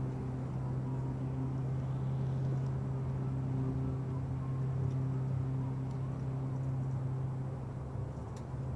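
A steady low mechanical hum, with faint whines that rise and fall in pitch now and then.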